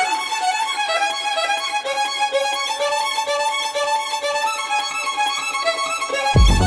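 Trance track in a breakdown: a high melodic lead of held notes with no beat, then a heavy bass and kick drum drop in just before the end.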